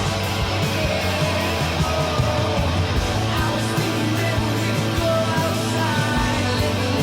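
Rock music soundtrack with electric guitar, a steady beat and singing.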